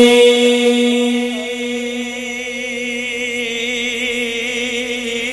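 A male singer's long held note in a devotional Sufi kalaam, fading away over about the first second, then steady musical accompaniment that holds the same pitch.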